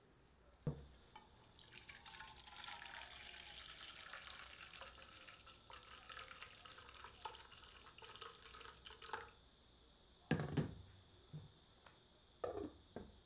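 Water poured from a kettle into a stainless steel bowl, splashing steadily for about seven seconds, then stopping. A few seconds later come two loud clunks as a second stainless bowl of white chocolate wafers is set down over the water for a water bath.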